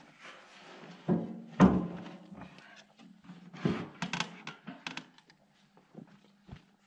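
A few solid thuds and knocks with lighter clicks between, the loudest about a second and a half in, over a faint steady hum.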